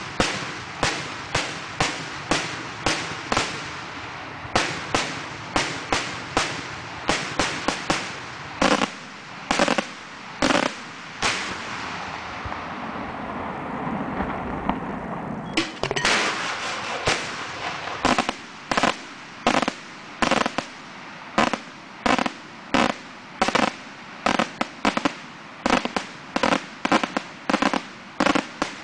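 Festival fireworks bombs going off in rapid succession, loud sharp bangs at roughly two a second. About halfway through, the bangs give way to a few seconds of continuous rushing noise that swells and then cuts off suddenly, before the rapid bangs resume.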